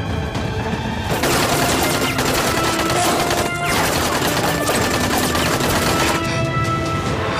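Dense rapid gunfire, a fusillade of many shots, starting about a second in and stopping about six seconds in. It plays over background music with held notes.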